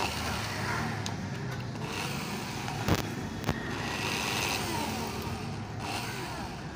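Electric drill running steadily, its twist bit boring out the plastic packed inside a graphite badminton racket frame, with a couple of short clicks about three seconds in.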